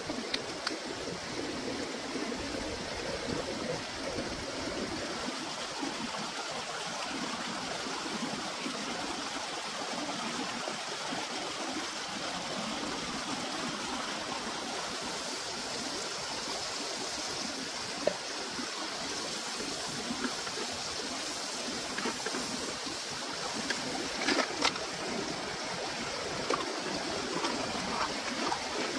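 Shallow stream running over rock: a steady rush of water. A few short sharp clicks and knocks stand out, a cluster of them near the end.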